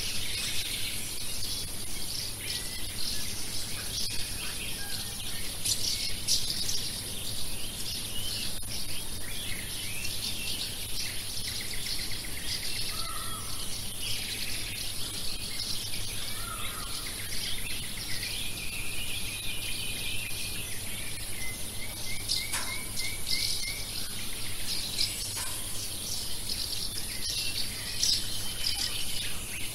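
Many songbirds chirping and trilling over a steady high hiss.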